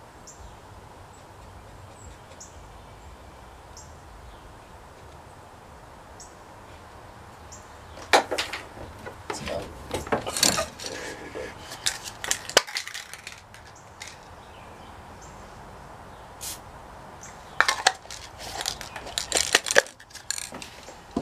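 Hard objects being handled, clinking and clattering in two bouts, one about eight seconds in and a shorter one near the end, over a faint steady background hiss.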